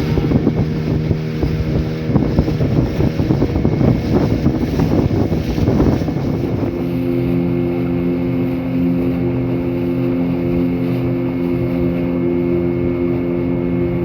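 Motorboat engine running steadily under way. From about two seconds in to about six a rough, choppy noise rises over it, then the engine's steady note comes through clearly.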